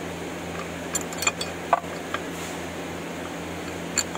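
Hand tools and metal parts clinking against the engine's metal housing: a quick run of sharp metallic clicks about a second in, and one more near the end. A steady hum sits underneath.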